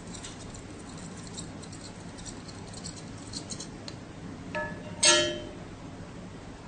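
Two pitched, bell-like musical notes, the second louder and ringing out, about four and a half and five seconds in. Under them is a steady low hum with faint scattered ticks.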